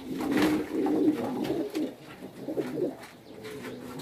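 Domestic pigeons cooing, louder in the first two seconds and fainter afterwards.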